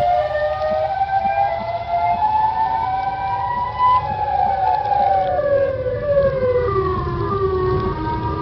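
Outdoor warning siren wailing: several tones sound together, rising in pitch for about four seconds and then falling slowly for the next four.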